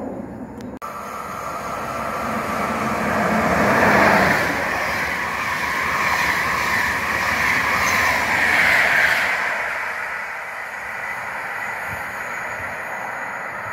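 Czech Railways (České dráhy) passenger coaches passing at speed: the rush of wheels on rail rises as the train approaches, is loudest about four seconds in, and fades after about nine seconds as it moves away.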